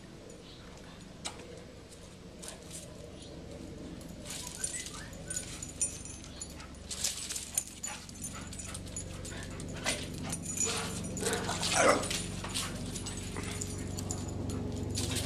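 Several dogs playing rough, with short yips and scuffling. There is a string of sharp little sounds through the middle, and a drawn-out whine near the end.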